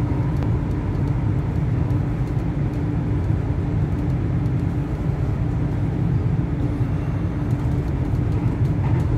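Tram running at steady speed, heard from inside the car: a continuous low rumble of wheels on rail with a steady hum and a few light scattered ticks.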